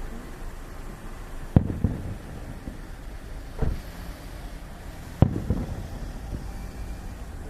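Aerial firework shells bursting: a sharp boom about one and a half seconds in and another about five seconds in, each trailing off in a short rumble, with a softer thud between them.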